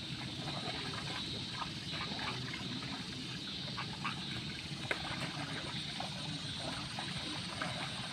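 Flooded rice-paddy ambience: water trickling and splashing in the wet mud, with scattered short animal calls and small clicks over a steady outdoor hiss.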